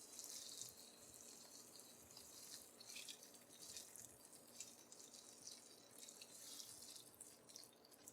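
Near silence, with a faint high hiss and scattered small crackles from eggplant and eddo frying in the pot.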